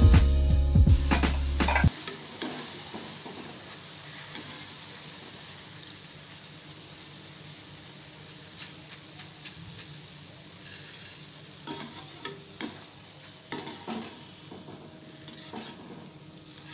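Gram-flour boondi frying in hot oil in a kadhai, a steady sizzle. Near the end come a few sharp taps and scrapes of the metal ladle and strainer against the pan. Background music plays for the first two seconds, then cuts off.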